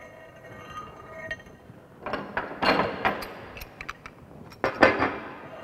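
Metal clinks and scrapes of a union nut on a galvanized steel pipe being handled. They come in two louder clusters, one about halfway through and one near the end.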